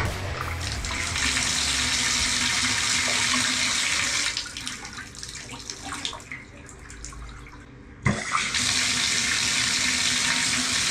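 Water running from a bathtub spout as the faucet handles are opened: a steady hiss that falls to a thin trickle about four seconds in and comes back full about eight seconds in with a sharp knock. The faucet is being test-run after its handles were reassembled.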